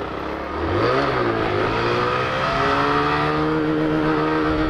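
Small Honda step-through motorcycle's engine accelerating: its pitch rises, dips briefly about a second in, climbs again, then holds steady at cruising speed over wind rush.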